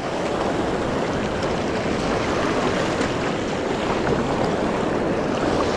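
Small waves washing up onto a sandy beach: a steady rush of surf.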